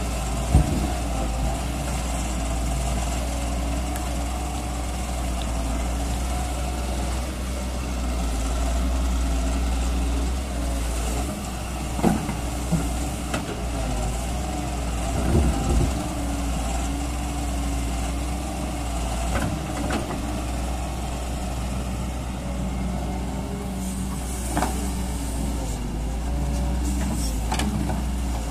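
Doosan DX140W wheeled excavator's diesel engine running steadily while the machine digs, with a few sharp knocks and clunks from time to time.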